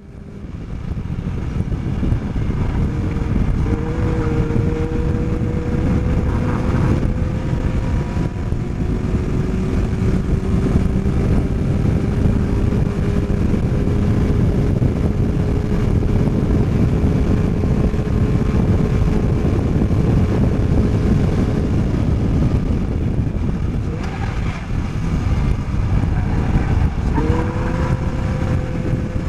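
Onboard sound of a Caterham Seven Academy race car at full speed: the engine pulling hard at high revs under a heavy rush of wind. It eases off for a corner a little after twenty seconds, then accelerates again near the end.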